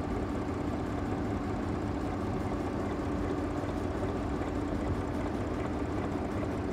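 Audi Q7 engine idling steadily. It is running with a misfire on cylinders 4-5-6 that sets the check-engine light blinking, which the mechanic blames on a failing ignition coil.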